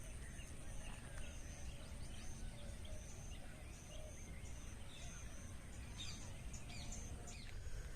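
Birds calling: a thin high note repeated about twice a second and scattered short chirps, over a low rumble.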